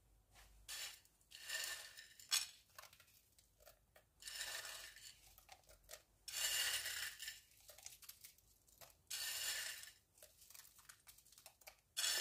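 Broken pieces of sugar-roasted speculoos biscuit sliding and rattling off a plate onto a cake, in about five short bursts of scraping, with a sharp clink about two and a half seconds in.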